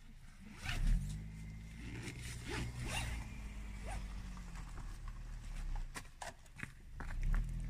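Honda hatchback rolling slowly in over gravel and pulling up, its engine running low and steady under the crunch of tyres on stones.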